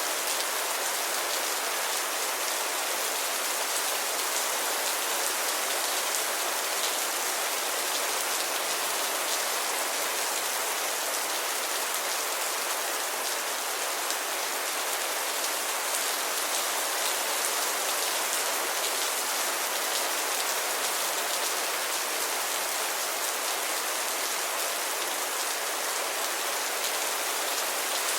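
Steady rain falling: an even, hissy wash of sound with fine ticks of individual drops, unchanging throughout.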